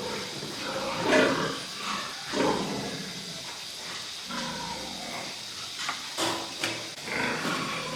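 Pigs calling in a series of short, irregular grunts and squeals, with a couple of sharp knocks about six seconds in.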